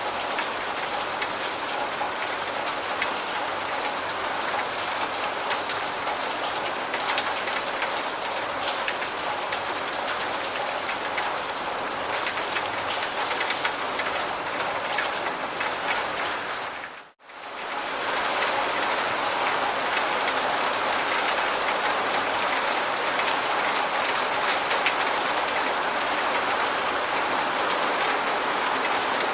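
Steady rain falling, a dense hiss flecked with the ticks of single drops. About two-thirds of the way through it briefly fades out almost to silence, then comes back slightly louder.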